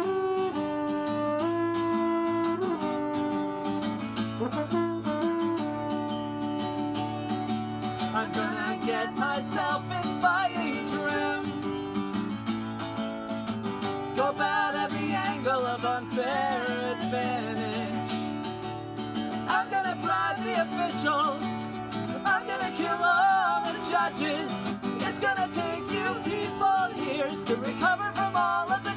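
Acoustic guitar playing with a French horn holding a melody of sustained notes; from about eight seconds in, the horn drops out and a voice sings over the guitar.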